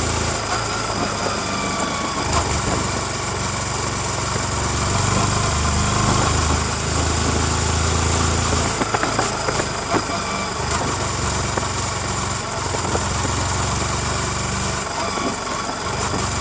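Yamaha MT-15's 155 cc liquid-cooled single-cylinder engine running through its stock exhaust while riding, its low note stepping up and down several times.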